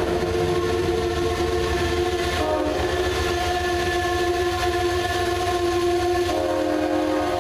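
Amtrak locomotive's several-note air horn sounding in a long, held blast whose chord shifts about two and a half seconds in and again near the end, over the steady low rumble of the passenger train rolling past.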